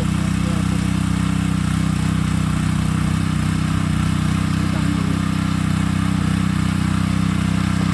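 Small engine of a Cakar Baja mini tiller running steadily at an even speed.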